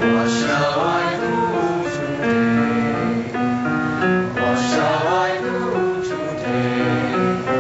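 Singing over keyboard accompaniment, with sustained chords throughout and a sliding sung phrase about half a second in and again about five seconds in.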